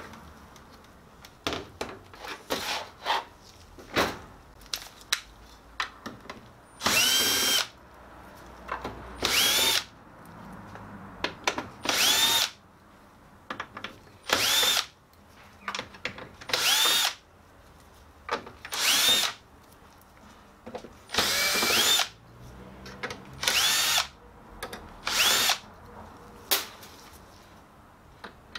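Cordless drill-driver unscrewing screws from a copier touch-panel unit's plastic housing: about nine short runs, each a whine that rises as the motor spins up and then holds for about a second. Sharp clicks from handling and loose screws come between the runs.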